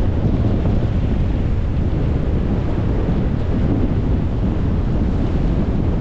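Wind buffeting the microphone in a low, steady rumble, over the rush of rough surf breaking around the pier's legs.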